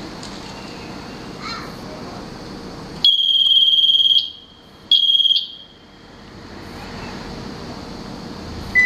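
Electronic beeper sounding twice: a long, loud, high-pitched beep of about a second, then a shorter one about a second later.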